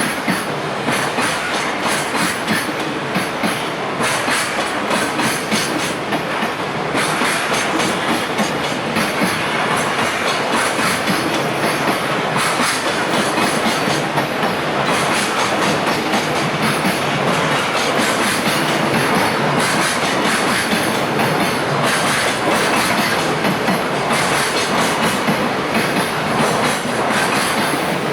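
Freight train of container wagons rolling past on its way out of the station, wheels clicking rhythmically over the rail joints with a steady rumble.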